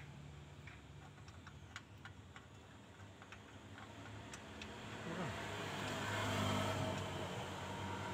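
Scattered light metallic clicks and taps as a car's transmission is handled and worked into place by hand. From about five seconds in, a steady low engine drone swells up and becomes the loudest sound.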